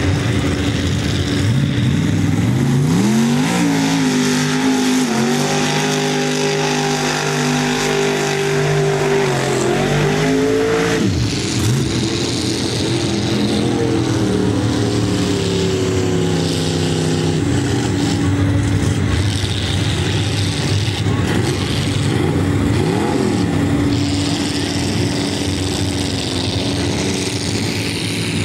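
Mega truck's engine revving hard. It climbs about three seconds in and holds at high revs for several seconds, then drops back about ten seconds in and runs lower, with brief blips of throttle later.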